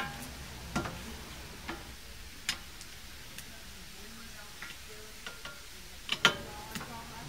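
Irregular metallic clicks and clinks of a steel screwdriver against the retaining screws and hub of a new brake rotor as the screws are set, some with a brief ring; the loudest pair comes about six seconds in.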